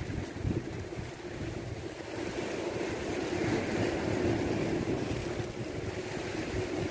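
Wind buffeting the microphone over sea waves washing against the rocks of a breakwater, the wash swelling about three seconds in. A faint steady hum runs underneath.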